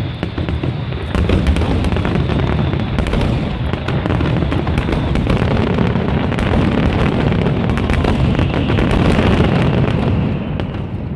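Fireworks show at full volley: shells bursting in quick succession, a continuous din of low booms with dense crackling on top.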